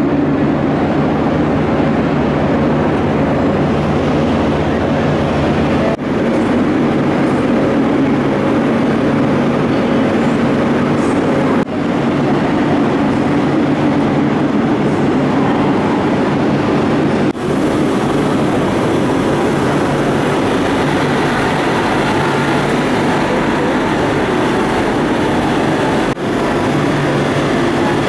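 Steady rumble and low hum of a Renfe Civia 464 electric multiple unit in a station hall, with no clear pitch change. The sound drops out briefly and shifts about four times.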